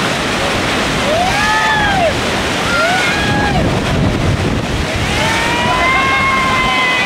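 River rapid roaring in a steady rush of whitewater, with rafters yelling over it: a rising-and-falling shout about a second in, another around three seconds, and a long drawn-out yell from about five seconds on.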